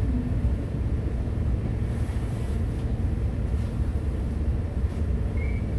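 Inside a city bus under way: a steady low rumble of engine and road noise heard in the cabin. A short high beep sounds near the end.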